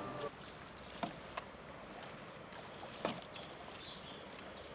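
A long wooden paddle dipping and splashing in floodwater as a man propels a small boat, two strokes about two seconds apart over faint lapping water.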